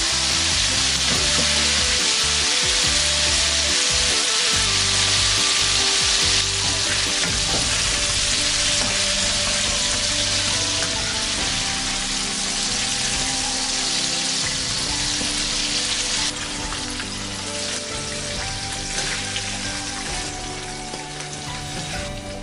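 Chicken wings deep-frying in hot oil in a wok: a steady, loud sizzle. It steps down in loudness twice, about six seconds in and again past the middle.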